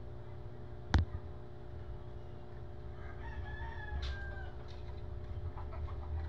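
A single sharp click about a second in, then a faint, drawn-out rooster crow from about three seconds in, over a low steady hum.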